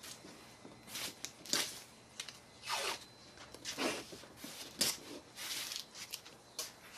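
Blue masking tape being peeled off its roll in several short, irregularly spaced pulls and pressed down by hand along a car's trunk-lid edge.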